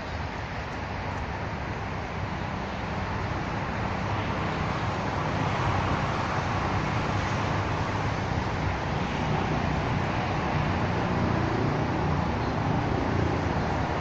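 Steady rumble of distant road traffic, growing a little louder after about four seconds.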